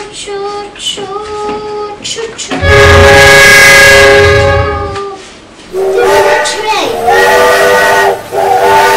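Electronic train sound effects from a toy train: short pitched beeps, then a loud horn blast starting about two and a half seconds in and lasting about two seconds, followed by wavering whistle-like tones.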